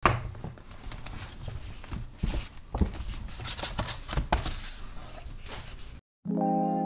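Handling noise: rustling with a few sharp knocks, cutting off abruptly about six seconds in. After a brief silence, soft keyboard music with held chords begins near the end.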